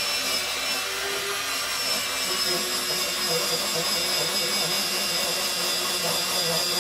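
Morphy Richards electric grater-slicer running steadily with a high motor whine while it grates potato that is pressed down into it.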